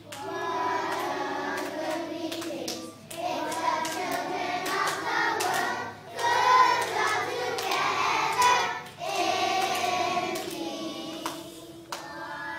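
A children's choir singing together, in phrases broken by short breaths about every three seconds.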